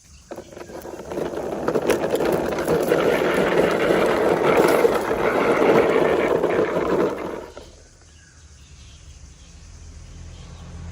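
Toy car pushed along by hand, its wheels making a steady rolling noise that stops about seven and a half seconds in.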